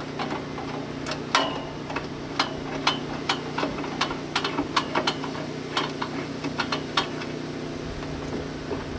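Ratchet wrench clicking in short irregular runs, with small metal ticks, as a bolt is worked loose inside a gas grill's metal firebox. A steady low hum runs underneath.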